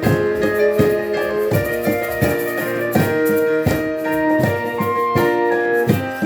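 Live instrumental music led by a street piano, with held notes over a steady beat of percussion strikes.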